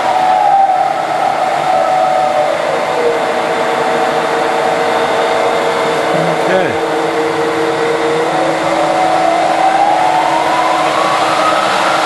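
1959 Voest engine lathe running on its variable speed belt drive, which carries a cut-down replacement belt. Its whine drops in pitch over the first few seconds as the speed is turned down, holds steady, then climbs back up over the last few seconds as the speed is brought up again.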